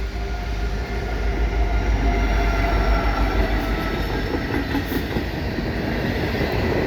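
CN freight train rolling past: a steady rumble of wheels on rail, with thin high tones running over it.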